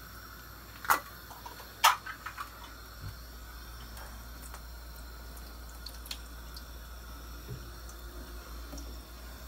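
Two sharp knocks about a second apart, then a faint steady trickle of liquid as a tin of ackee is drained through a plastic colander in a stainless steel sink.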